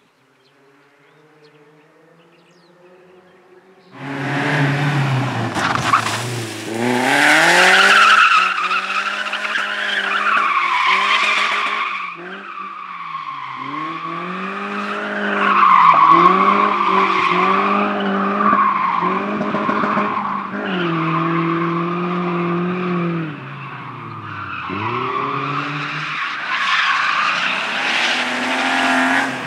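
A faint engine for the first few seconds, then a competition car at high revs from about four seconds in, its engine pitch surging and dropping again and again, with loud tyre squeal as the car slides. It is loudest about eight and sixteen seconds in.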